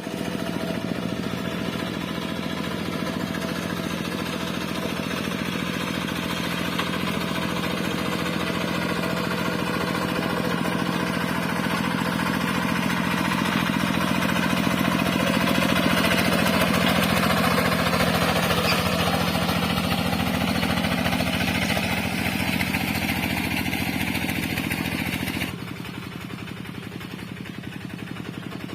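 Rice-paddy tractor engine running steadily, getting somewhat louder in the middle, then dropping abruptly to a quieter level near the end.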